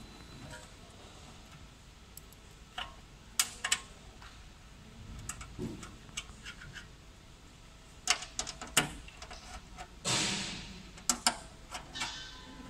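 Scattered sharp metal clicks and knocks, in small clusters, as the steel column of a desktop fiber laser marking machine is handled and fitted onto its base plate, with a short scraping rustle about ten seconds in.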